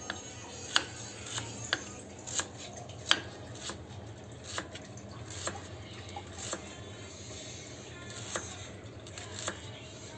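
Knife slicing through a red onion on a round wooden chopping block, each cut ending in a crisp tap of the blade on the wood. About a dozen taps, unevenly spaced, roughly one a second.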